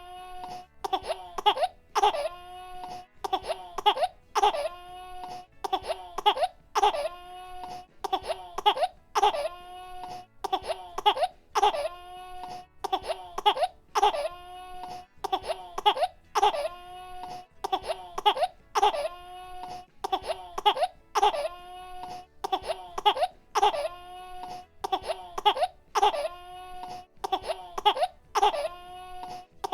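A baby crying and coughing: short, sharp-starting wails repeated at an even pace, about one a second.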